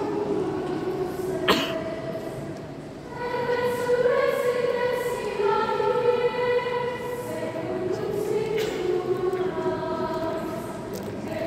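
Girls' choir singing sustained chords in a church. The singing drops quieter, then comes back louder about three seconds in, and a single sharp click sounds a little before that.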